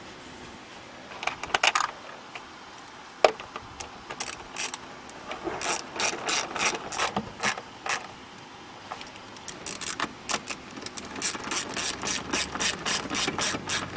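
Hand ratchet clicking in strokes as it tightens the intake hose clamp. It starts with scattered strokes, then settles into a steady run of about three strokes a second.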